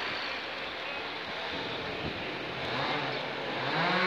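Street traffic noise, with an engine speeding up and getting louder near the end.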